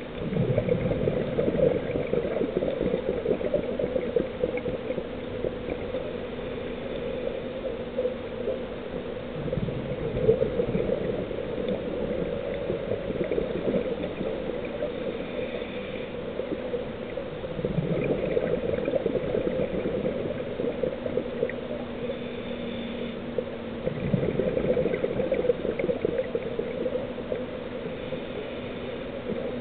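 Scuba diver breathing through a regulator underwater: exhaled bubbles gurgle out in bursts every several seconds, over a steady low hum.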